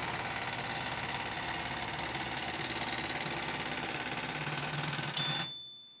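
Royal Epoch typewriter's automatic spacing key held down: the carriage runs across in a fast, even stream of escapement clicks for about five seconds. Near the end the carriage bell rings once as it reaches the margin, and the clatter stops.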